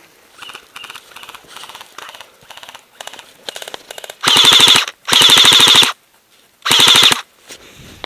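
Airsoft AKS-74U electric gun firing three short full-auto bursts about four seconds in, each a rapid, even rattle, the third the shortest. Before them, quiet footsteps through dry grass.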